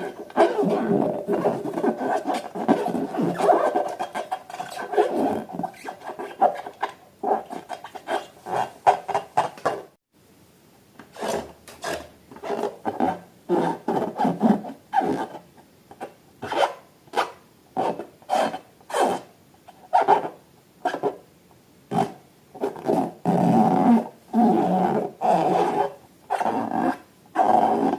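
Hands rubbing and squeezing rubber balloons, giving a run of short rubbery squeaking strokes. The strokes are dense at first, break off suddenly about ten seconds in, then come singly about once or twice a second.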